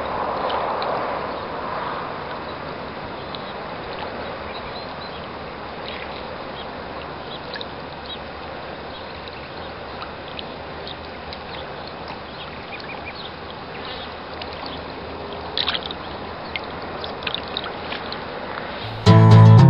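Steady outdoor background hiss at the water's edge, with faint short chirps scattered through it and a slightly louder swell in the first two seconds. Acoustic guitar music starts abruptly near the end.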